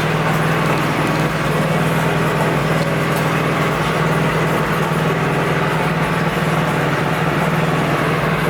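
A small engine running steadily at a constant speed, a loud, even drone with a low hum.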